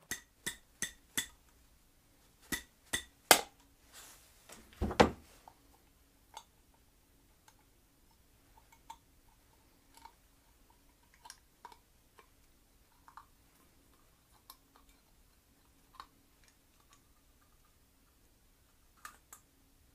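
Metal clicks and clinks from a two-piece Briggs & Stratton Flo Jet updraft carburetor being worked apart by hand: a quick run of ringing taps at the start, three louder knocks, a dull thump about five seconds in, then sparse light clicks.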